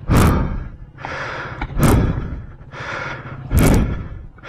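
A person panting hard, out of breath from exertion: a loud gusty breath about every second and a half to two seconds, with softer breaths between.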